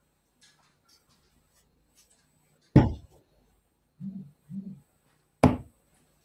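Two sharp knocks about two and a half seconds apart, with two short, low, muffled sounds between them.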